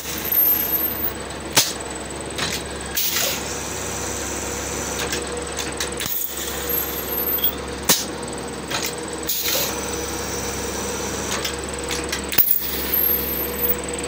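Plastic bottle extrusion blow-moulding machine running through its cycle. A steady motor hum sits under sharp metallic clanks and short hisses that repeat about every six seconds.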